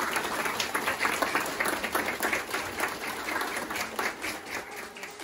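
Audience applauding in a small room, many hands clapping at once, dying away near the end.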